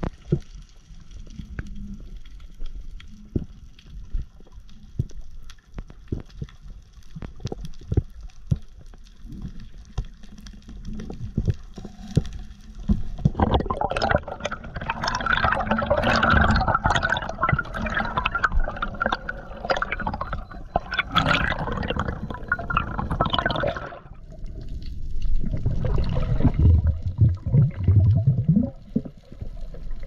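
Water sloshing and gurgling. Scattered clicks come first, then a long stretch of splashing and bubbling from about halfway to near the end, and after a short pause a lower, heavier bubbling.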